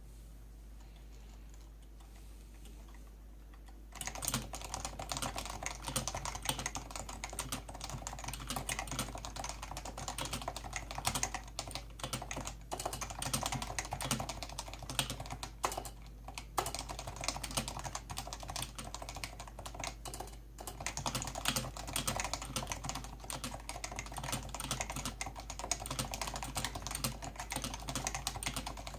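Typing on a Leopold FC660C keyboard with Topre switches: a quick, continuous run of keystrokes that starts about four seconds in, broken by a few short pauses.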